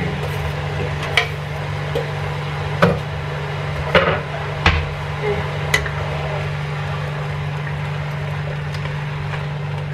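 Kitchen sounds over a steady low hum: about six short sharp knocks of wood and utensils on the counter and the stainless steel wok in the first six seconds, then a wooden spatula stirring simmering sugar syrup and chopped water chestnut.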